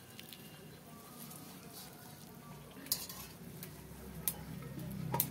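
Boiled radish greens squeezed by hand in a steel colander to press out their water: a soft wet rustle, with three sharp clinks of the metal bowls in the second half.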